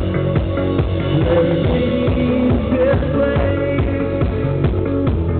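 Live rock band playing loud, with electric guitar over a steady drum beat.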